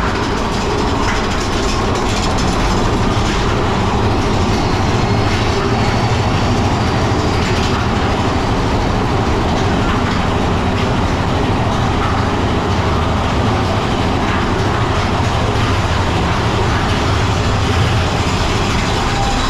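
Big Thunder Mountain Railroad mine-train roller coaster running along its track, heard from a seat in the train: a loud, steady rumble of the wheels on the rails.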